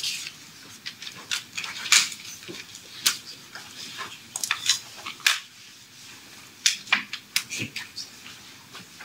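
Writing on a classroom board: irregular sharp taps and scratches as figures are written out.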